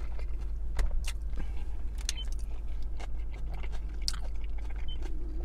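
A person chewing a big mouthful of hamburger close to the microphone, with irregular wet clicks and smacks. A steady low hum runs underneath.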